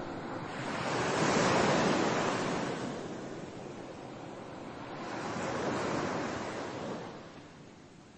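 Soft rushing noise, like surf or wind, that swells up and ebbs away twice and fades near the end.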